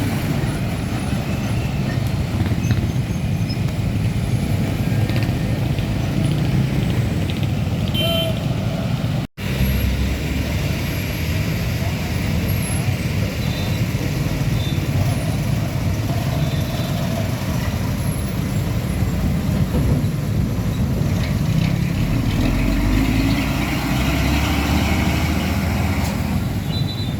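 Heavy diesel trucks driving past in road traffic: steady engine and tyre noise. About nine seconds in, the sound drops out for a moment.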